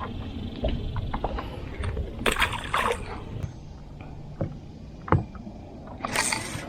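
Handling sounds aboard a small fishing boat: scattered clicks and knocks over a steady low rumble, with two short rushes of noise, one about two seconds in and one near the end.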